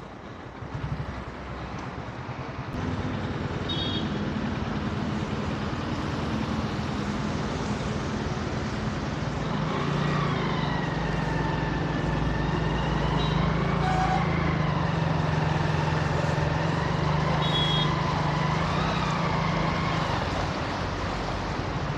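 Motorcycle engine running steadily as it rides through water covering the road, with a steady hiss of water and road noise over the engine hum. The sound grows louder over the first few seconds.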